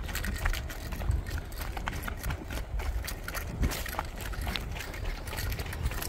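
Quick, irregular footsteps hurrying down a dirt forest trail, with a low rumble underneath.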